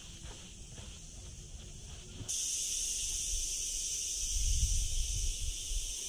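Cicadas buzzing in a steady high chorus, which jumps much louder about two seconds in. Faint footsteps on a dirt track in the first two seconds, and a low rumble on the microphone near the end.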